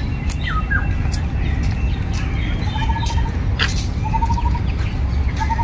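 Wild birds calling: a short, rapid trill of evenly spaced notes is repeated three times, about 1.4 seconds apart. Sharp chips and a falling whistle come near the start. Under them runs a steady low rumble.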